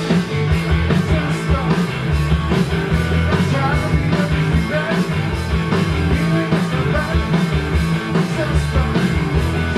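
Rock band playing: electric guitars, bass guitar and drum kit together, the guitars on the song's opening riff over a steady bass and regular drum beats.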